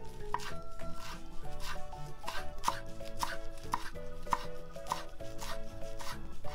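Kitchen knife finely shredding rolled-up shiso leaves, the blade tapping on a wooden cutting board about twice a second in an even rhythm.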